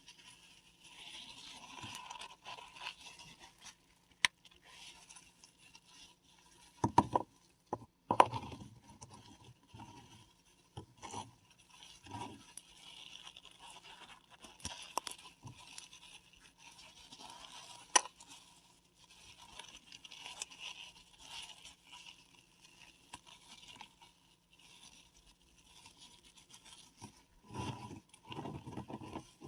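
Paradichlorobenzene mothball crushed and rubbed by hand: gritty crunching and scraping as it crumbles, with a few sharp cracks.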